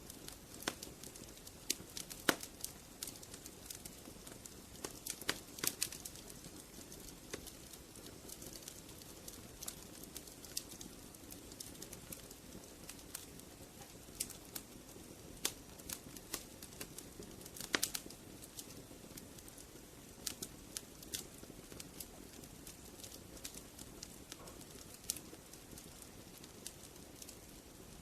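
Burning firewood crackling: irregular sharp pops and snaps over a soft steady hiss of flame, with a few louder pops, one about two seconds in and another about eighteen seconds in.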